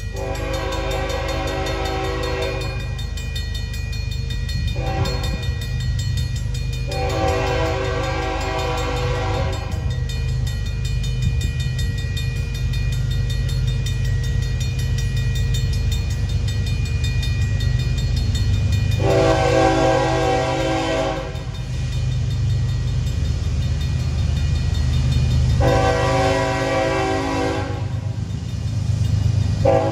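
Air horn of a CN GE ES44AC diesel locomotive blowing the grade-crossing signal as it approaches: a long blast, a short one and another long; then, after a pause of about nine seconds, two long blasts and a short one, with the next long starting at the very end. A Safetran M-Bell crossing bell rings steadily underneath, over the deep rumble of the approaching locomotives.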